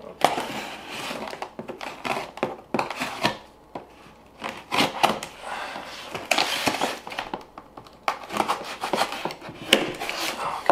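Cardboard boxes and packaging being handled and unpacked: irregular rustling and scraping with small knocks and clicks.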